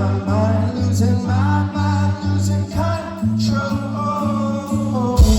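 Indie rock band playing live with a male lead singer, the bass pulsing on an even beat about twice a second. A heavy low hit about five seconds in.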